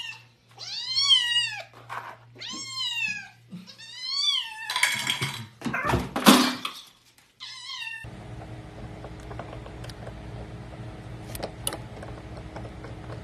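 Kitten meowing repeatedly in high, arching cries, four in a row. A rough burst of noise follows, then one short meow. After that comes a steady low hum with faint ticks.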